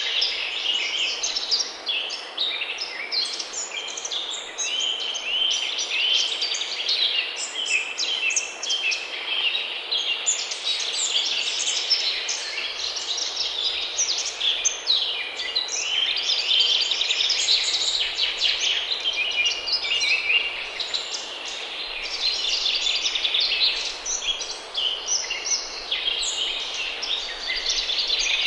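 Many songbirds singing and chirping at once, a dense chorus that goes on without a break.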